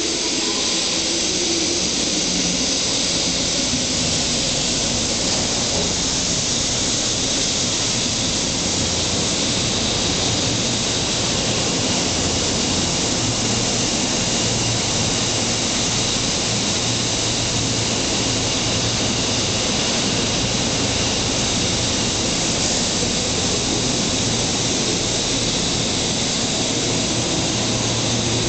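A Shinkansen Series 0 train arriving and rolling past close by on the platform track as it slows to stop. It makes a loud, steady rush of wheels and running gear with a faint high whine over it, and a low hum grows stronger about halfway through.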